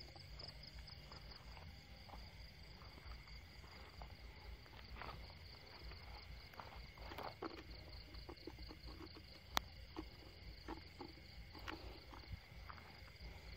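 Steady night chorus of insects with a pulsing high trill, under scattered soft footsteps and rustling through wet vegetation. A single sharp click about nine and a half seconds in.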